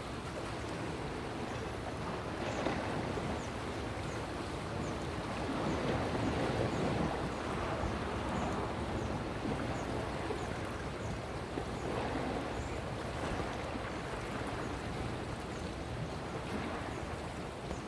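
Steady rushing of moving water, swelling and easing every few seconds, with faint short high chirps repeating through it.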